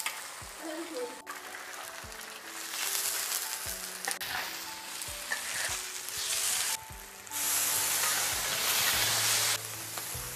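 Tofu slices sizzling in hot oil in a large wok, with the knocks and scrapes of a metal spatula turning them. The sizzle dips and swells again a couple of times.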